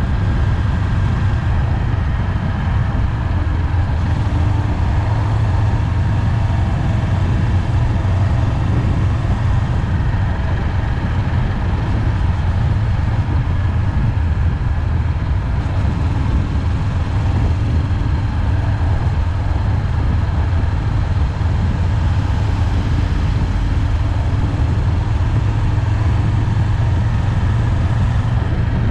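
Honda 400X parallel-twin motorcycle engine running steadily under way, a constant low drone.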